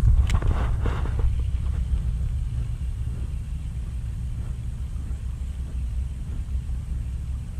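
Steady low rumble of wind on the microphone, with brief rustling in the first second.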